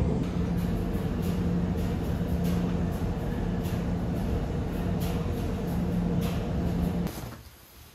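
Steady rumble of a moving vehicle with a low hum, cutting off suddenly about seven seconds in.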